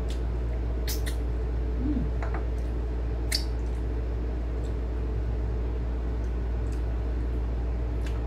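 Eating sounds of someone eating braised pork and rice by hand: a few scattered short clicks of chewing, mouth and fingers on the plate, over a steady low hum that runs throughout.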